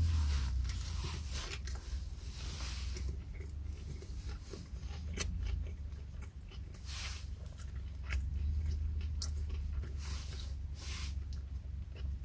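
A man biting into and chewing a crispy fried chicken sandwich, with irregular crunchy chewing sounds. A low steady hum runs underneath.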